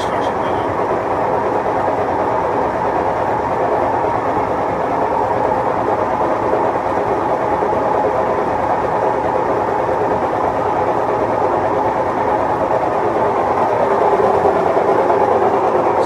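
Maytag Neptune front-load washing machines in their spin cycle: a steady mechanical whir and rumble, growing slightly louder near the end.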